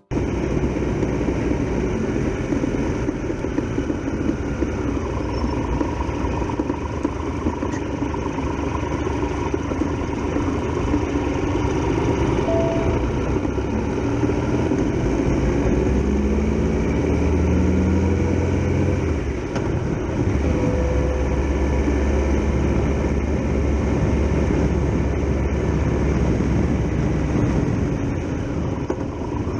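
Triumph Tiger Explorer XRx motorcycle's three-cylinder engine running under way, with steady wind and road rush. The engine note climbs in steps a little past halfway as the bike speeds up, then holds.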